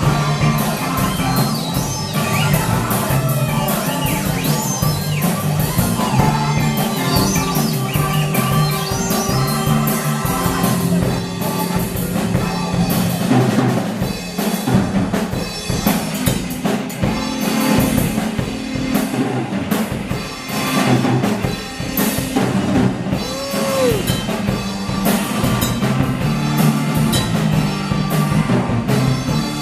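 A band playing live, with the drum kit to the fore: kick and snare driving a steady beat under sustained bass and other instruments. The music dips briefly about two-thirds of the way through, then comes back up.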